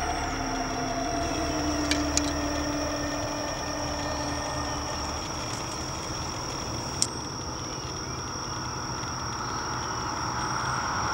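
Steady low rumble like distant traffic under a thin, steady high whine, with a few faint short chirps. There are sharp clicks twice about two seconds in and once about seven seconds in.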